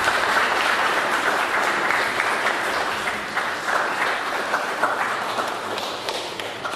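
Audience applauding, many hands clapping at once; the clapping slowly fades toward the end.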